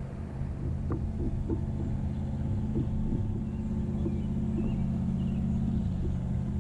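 A low, steady engine drone, a motor running at an even speed somewhere out of the picture, with a few faint small clicks over it.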